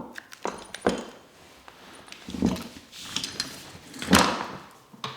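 Office chair parts being handled and the last screw fastened during assembly: a series of knocks, clicks and scraping noises, the loudest about four seconds in.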